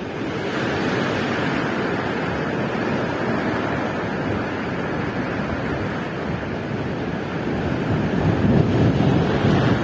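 Ocean surf: a steady rush of breaking waves, swelling into a louder surge near the end.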